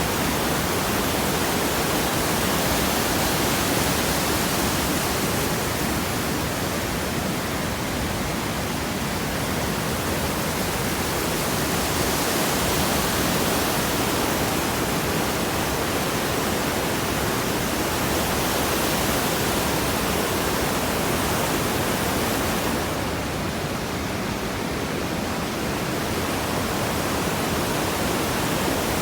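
Rushing water, a steady even noise that eases slightly in the high end twice.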